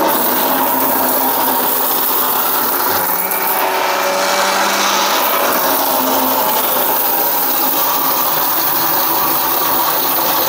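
Kanchan mixer grinder motor running steadily with its small stainless-steel dry jar, grinding freshly fried whole spices into dry masala; the unit is tilted and shaken while it runs.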